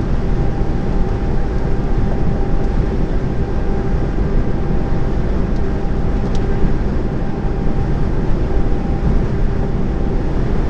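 Heavy lorry cruising on the motorway, heard from inside the cab: a steady engine drone with a constant hum over low road rumble.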